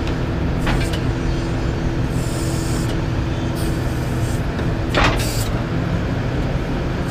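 Cummins 6.7 turbo diesel of a Freightliner rollback tow truck idling steadily, with the power take-off engaged to run the hydraulic wheel lift. A brief hiss comes about five seconds in.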